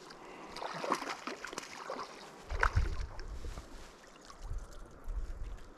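Water sloshing and light splashing, with scattered small knocks and clicks and a low rumble in the second half.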